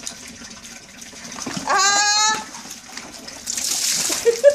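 A wet cat gives one long, wavering meow about two seconds in. Near the end, water poured from a plastic basin splashes down.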